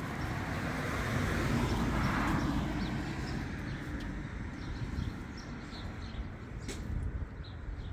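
A vehicle passes on the street, a steady rushing noise that swells to its loudest about two seconds in and fades away. After it, faint bird chirps.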